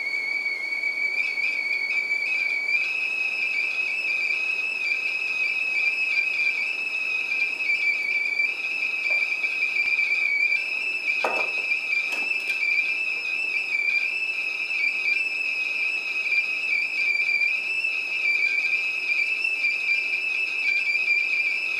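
Stovetop kettle whistling at the boil: one steady high tone that wavers slightly in pitch. A couple of short knocks come near the middle.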